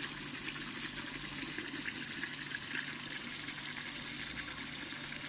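Rice washer discharging a stream of water and rice from its outlet pipe into a stainless steel hopper: a steady pouring, splashing rush, with a faint steady low hum underneath.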